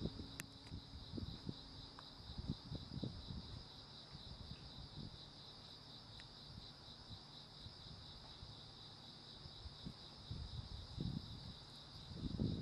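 Insects, cricket-like, chirring steadily in a fast pulsing trill at two high pitches. Irregular low rumbles and bumps come and go, strongest in the first couple of seconds and again near the end.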